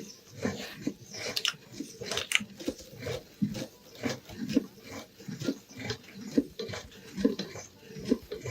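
Meat grinder working through a bar of soap: short, irregular crunching and squelching sounds, two or three a second.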